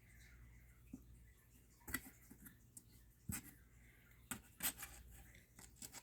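A few short, sharp light clicks and knocks, scattered over several seconds, against quiet room tone.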